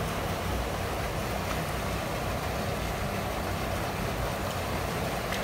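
Steady rushing of flowing canal water, with a low rumble underneath and no distinct splashes.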